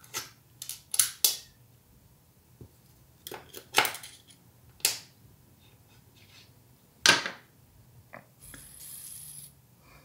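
Steel balls being pressed by hand into a small ball bearing through loading notches cut into its races, giving sharp metallic clicks and snaps as each ball drops into the groove. About eight clicks, unevenly spaced, with a brief soft rustle near the end.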